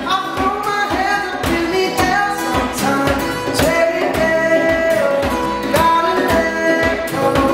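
Acoustic pop song: two acoustic guitars strummed, with a hand drum thumping a steady beat about twice a second and voices singing the melody.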